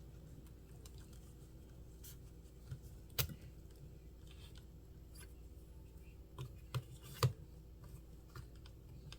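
Scattered small clicks and taps of tools and metal parts being handled while a part is pulled out of an RC truck's wheel hub, over a faint steady hum. The sharpest click comes about three seconds in, with a few more between six and seven seconds.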